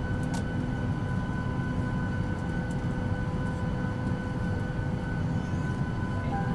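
Steady cabin noise of a Boeing 737-800 during pushback: a low rumble and hum with a few steady high tones over it.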